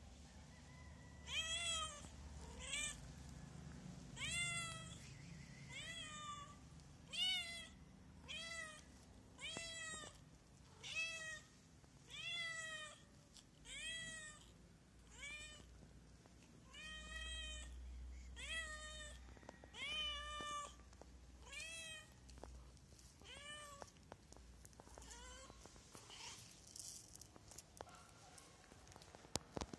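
A calico stray cat meowing over and over for food, about fifteen calls spaced roughly a second and a half apart, each rising then falling in pitch; the calls stop near the end.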